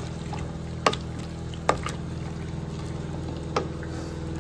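A wooden spoon stirring soup in a large stainless-steel stockpot: liquid sloshing, with three sharp knocks of the spoon against the pot, over a steady low hum.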